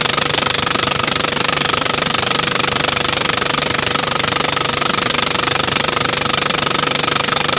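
Small boat engine running loudly and steadily, with a rapid, even knocking beat.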